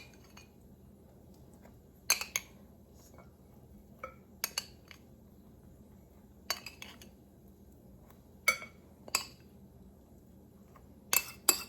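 A spoon clinking against a dish and pan while a melted butter and seasoning mixture is spooned over bread. Separate clinks come a second or two apart, with a quick run of clinks near the end.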